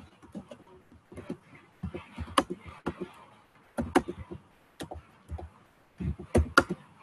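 Typing on a computer keyboard: irregular keystrokes in short runs separated by brief pauses, a few keys struck harder than the rest.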